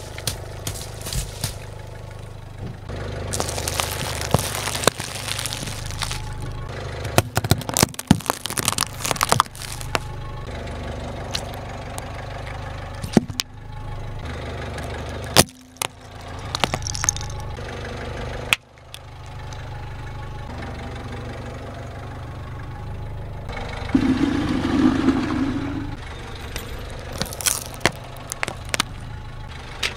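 A car engine idling as a tyre rolls slowly over small objects and crushes them, with repeated sharp cracks, pops and squelches as they burst. Near the start, plastic drink pouches burst and squirt under the tyre. The sound jumps abruptly several times between short clips.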